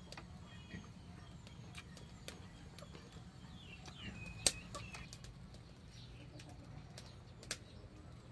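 Quiet background: a steady low hum with scattered sharp clicks and ticks, and one short chirp a little past halfway.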